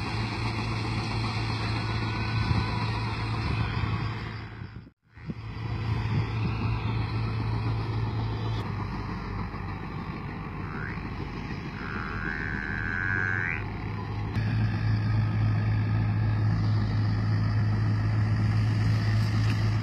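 Massey Ferguson 385 tractor's diesel engine running steadily under load as it drives a PTO-powered straw reaper chopping wheat stubble, a constant low drone. The sound drops out briefly about five seconds in.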